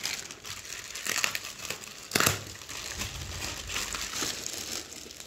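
Packaging crinkling and rustling as a sealed pack of lab coats is opened by hand, with one sharper crackle about two seconds in.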